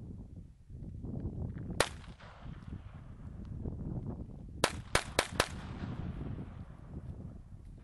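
Gunshots: a single shot, then about three seconds later four quick shots roughly a quarter second apart, over a steady low rumble.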